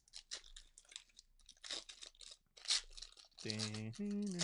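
A Pokémon TCG Paradox Rift booster pack's foil wrapper being torn open and crinkled, in irregular crackly bursts. Near the end comes a short wordless vocal sound, a hum that steps up in pitch.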